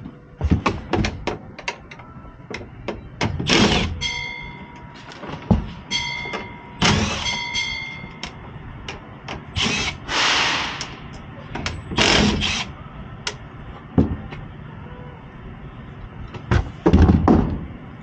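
Knocks, clicks and rattles of tools and furnace parts being handled, with short high electronic beeps about four seconds in and again between six and eight seconds, and a brief hiss about ten seconds in.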